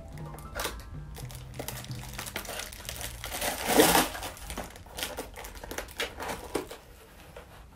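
Plastic packaging crinkling and a small cardboard box being handled and folded shut: a run of small clicks and rustles, with one louder rustle about four seconds in.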